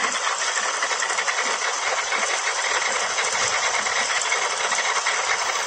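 Venturi fertilizer injector on a drip-irrigation line running under suction: a steady hiss of water rushing through it as it draws fertilizer solution up the suction hose.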